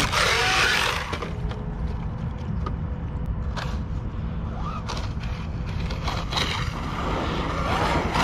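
ARRMA Kraton EXB 1/8-scale brushless electric RC monster truck driving: the motor whines, gliding up and down in pitch near the start and again near the end, over the noise of tyres and drivetrain, with scattered sharp clicks and knocks. The owner suspects the clicking comes from grinding internals or the new rear differentials.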